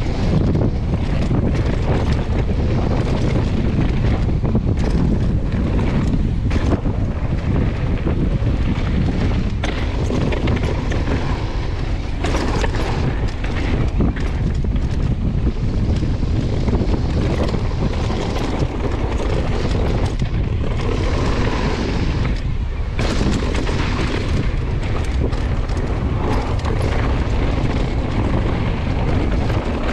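Wind buffeting the microphone over the rattle and tyre noise of a downhill mountain bike riding a rough trail, with frequent knocks from bumps and landings.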